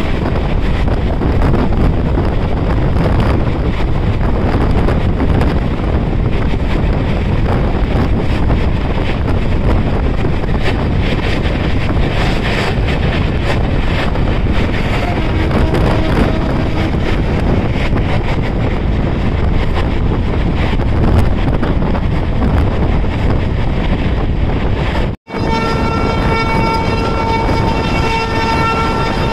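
Wind buffeting the microphone over the steady running noise of a moving passenger train, heard from on board. About 25 seconds in, the sound cuts out for an instant, and then a train horn sounds, held steady with a brief break.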